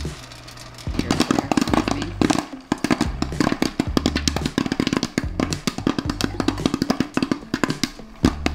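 Background music with a repeating bass line, over rapid, irregular popping of popcorn kernels in an electric stirring popcorn maker; the popping thickens about a second in.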